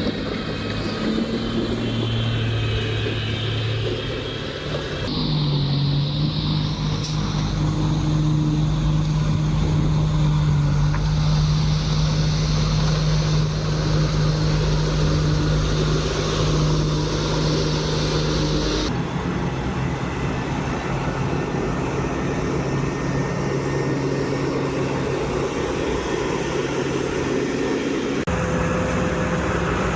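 Heavy machinery diesel engines running steadily. The engine sound changes abruptly about five seconds in, again around nineteen seconds, and near the end.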